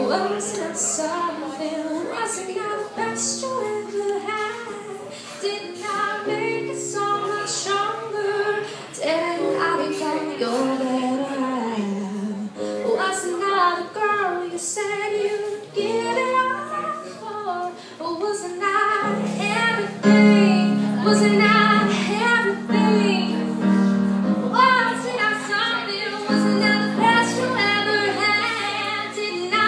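A woman singing a slow pop song, accompanying herself on an electric keyboard with sustained chords. The playing and singing grow louder about two-thirds of the way through.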